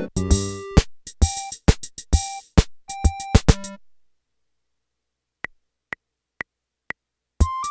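Casio MT-88 keyboard auto-playing a song from a ROM pack with its drum-machine rhythm and bass accompaniment, the tune ending just under four seconds in. After a short silence come four count-in ticks about half a second apart, then the next song starts with melody, bass and drums.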